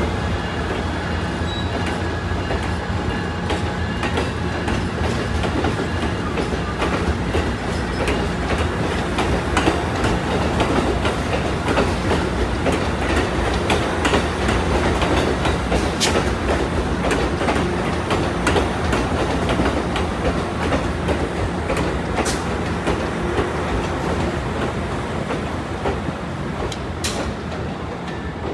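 Bilevel passenger cars of a departing Amtrak Pacific Surfliner train rolling past, a steady rumble with the clickety-clack of wheels over rail joints and scattered sharp clicks. A thin wheel squeal sounds near the start.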